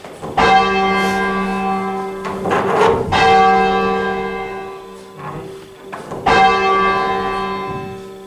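Church tenor bell of 11 cwt, tuned to G, rung by rope from the ringing room, striking three times about three seconds apart. Each stroke rings on with a deep hum and fades slowly.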